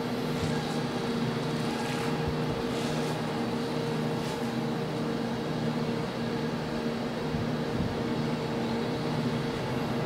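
Steady hum of ship's engines and machinery, a few low droning tones that hold unchanged throughout.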